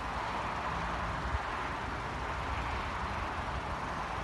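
Wind buffeting the microphone over a steady rushing background noise, with no distinct event.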